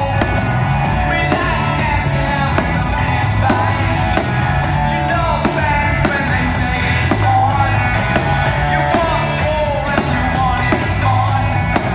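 Rock song with a singer over a steady drum beat and bass.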